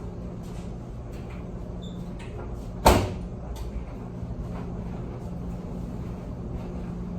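A door shutting once with a loud bang about three seconds in, over a steady low hum and a few faint light ticks.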